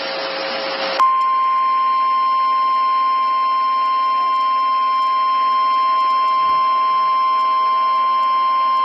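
Radio hiss for about a second, then NOAA Weather Radio's 1050 Hz Warning Alarm Tone: a single loud, steady tone held without change. It signals that a new warning broadcast is about to follow.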